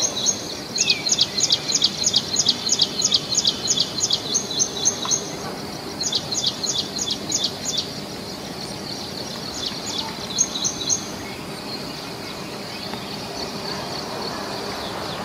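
A songbird singing runs of sharp, high, evenly repeated chirps, about four a second, in three bouts with short pauses between them, over a steady outdoor background hiss.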